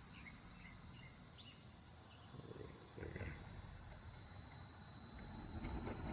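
A steady high-pitched chorus of crickets, with a few faint scratches of a plastic scraper point working at a painted tool tray.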